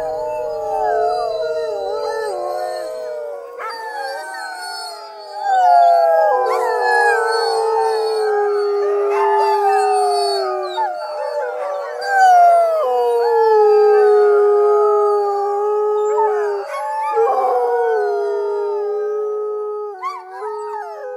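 Husky-type sled dog in harness howling: long drawn-out howls that slide downward in pitch, with several voices overlapping as other dogs howl along.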